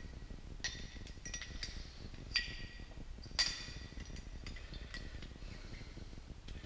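Light metallic clinks and ticks as a thrust bearing shell is handled and seated into an engine's number three main bearing cap: several short ringing clicks, the two loudest about two and a half and three and a half seconds in.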